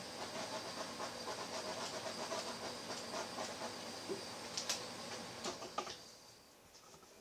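Handheld butane torch hissing steadily as it is passed over wet acrylic pour paint, the usual way of bringing up silicone cells and popping bubbles. A few sharp clicks come near the end, and the hiss stops about six seconds in.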